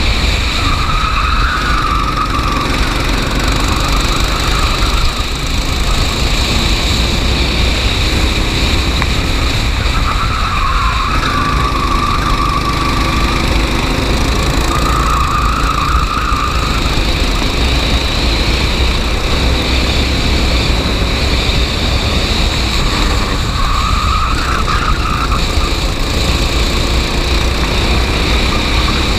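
Racing kart running at race pace, a loud steady engine-and-road noise with a higher note that swells in and out four times.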